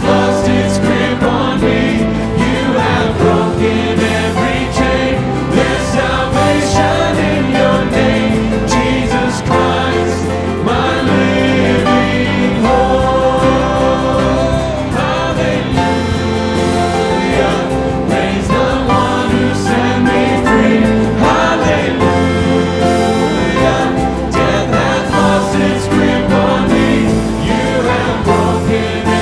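Church worship music: a band playing with a congregation or choir singing, as one continuous passage.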